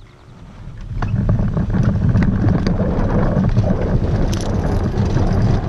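Wind rumbling on the microphone as a hang glider gathers speed under tow, building up about a second in and then staying loud and steady, with scattered light clicks and rattles from the glider's rigging.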